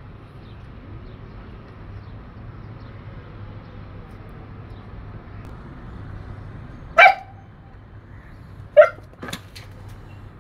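Siberian husky barking: one short, sharp bark about seven seconds in and a quick pair or trio near nine seconds, over a steady low hum.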